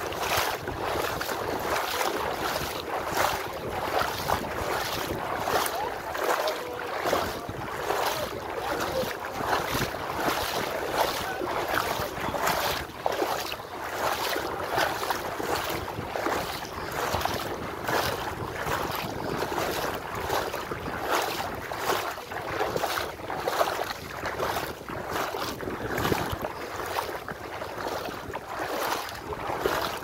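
Seawater sloshing and splashing in a steady rhythm as someone wades forward through the shallows, one splash with each stride. Wind buffets the microphone throughout.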